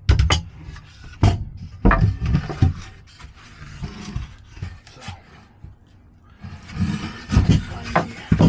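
Knocks and clatter of wooden and metal parts being handled, with a stretch of rubbing and scraping near the end.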